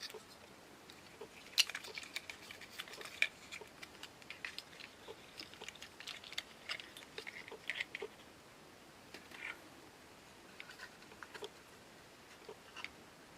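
Small, irregular clicks, taps and scrapes of lantern parts being handled during disassembly. They are busiest in the first half and then thin out to a few scattered clicks.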